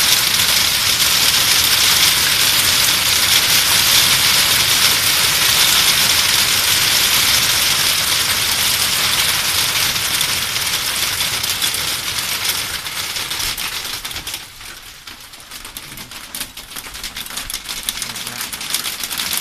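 Hail falling hard on gravel-surfaced paving slabs and lawn: a dense, steady clatter of hailstones striking the ground. About fourteen seconds in it thins out to scattered separate clicks.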